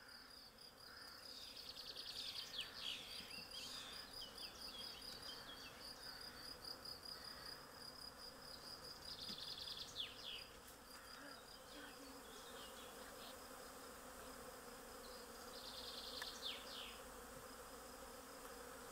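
Faint steady buzzing of a honeybee swarm flying around its cluster in a tree. A high, pulsing trill and a few short chirps sound over it, louder near the start and again around the middle and near the end.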